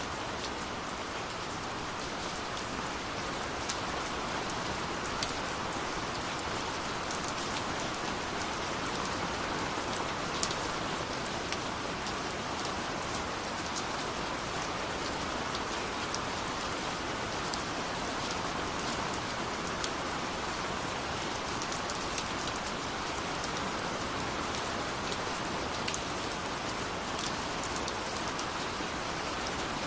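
Steady rain falling, with a constant hiss and scattered sharper drops landing on a surface.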